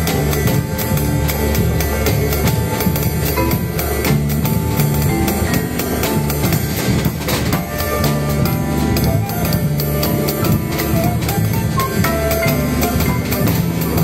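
A live band playing a song without vocals: a drum kit keeps a steady beat under a walking bass line, with a pitched melody line above.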